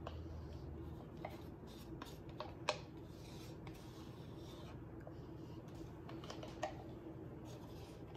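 Faint handling sounds of plastic paint cups: a few light taps and clicks, the sharpest about two and a half seconds in, over a steady low room hum.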